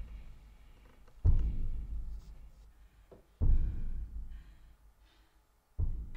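Three deep booms, each struck suddenly and dying away slowly, about two seconds apart: tension-building hits in a horror film soundtrack.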